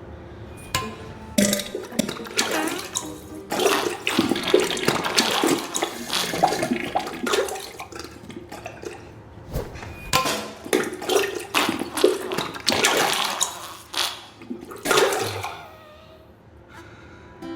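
Diarrhea sound effect: a run of irregular wet, spluttering bursts like loose stool and gas hitting toilet water, dying away near the end.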